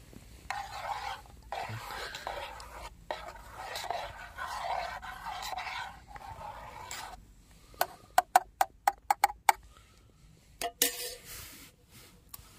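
Metal spoon stirring coffee in a metal camping mug, scraping round the inside for several seconds, then a quick run of about ten sharp clinks of spoon on mug, and a couple more knocks near the end.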